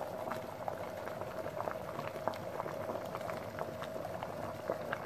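Water at a full boil in a small electric pot, bubbling steadily with many small irregular ticks and pops. The pot is serving as a makeshift double boiler, with a cut-open aluminium can of chopped chocolate set in the water to melt.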